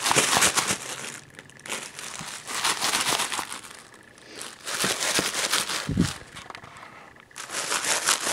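Rustling and crinkling close to the microphone, in several spells of a second or two with short quieter gaps, and a brief low sound about six seconds in.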